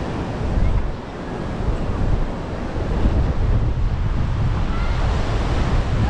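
Ocean surf washing onto a beach, a steady rushing noise, with wind buffeting the microphone.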